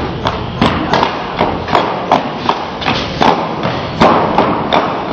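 Feet of a drill unit stamping in step on a concrete court as they march, a regular cadence of thuds about two to three a second.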